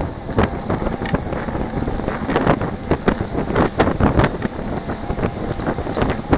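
Wind buffeting the microphone of a camera moving at riding speed on an electric unicycle, with rumble and irregular knocks from the ride over the sidewalk. A thin, steady high whine sits underneath.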